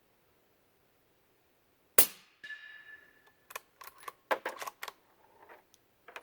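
One suppressed shot from a Ruger American Ranch Rifle in 300 AAC Blackout, fitted with a Silencerco Omega suppressor and firing 200-grain subsonic rounds. A single sharp crack comes about two seconds in, followed by a brief ringing tone. Then comes a quick run of metallic clicks as the bolt is worked.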